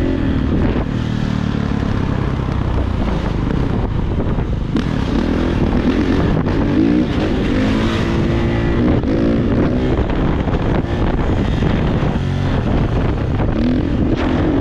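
Kawasaki KX450 dirt bike's single-cylinder four-stroke engine running under throttle while riding, its pitch rising and falling repeatedly as the throttle is opened and closed.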